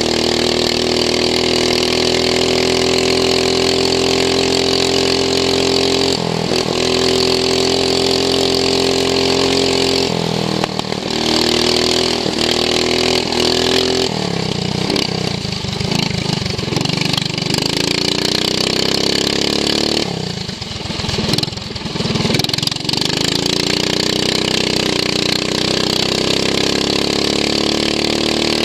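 Racing lawn mower's engine running hard at high revs, heard onboard. Twice, around ten and twenty seconds in, the revs drop and then climb back as the throttle is eased off and reopened.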